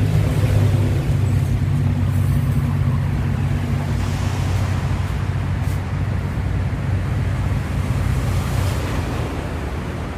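Wind buffeting the microphone, with a steady low motor hum under it that fades out about halfway through.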